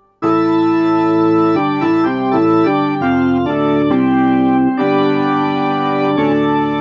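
1976 WLM Trip organ, a Finnish Hammond clone, played through an Allsound Leslie speaker cabinet. After a brief silence a full chord comes in, then a run of quick chord changes in the middle gives way to held chords, with a new chord near the end.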